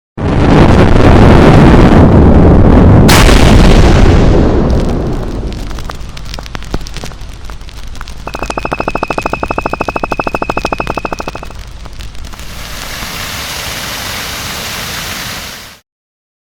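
Cartoon volcanic eruption sound effect: a sudden loud boom with a long rumble and a sharp crack about three seconds in, fading away over the next few seconds. Later comes a pitched, rapidly pulsing ringing tone for about three seconds, then a steady hiss that cuts off suddenly near the end.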